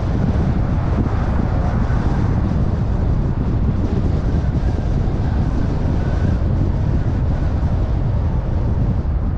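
Steady road noise and wind noise from a car driving along, a continuous low rumble with a hiss above it.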